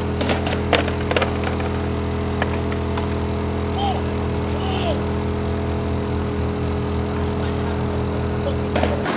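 Steady hum of an outdoor air-conditioning condenser unit running, with a few sharp clacks of a skateboard hitting concrete steps in the first second or so and another about two and a half seconds in.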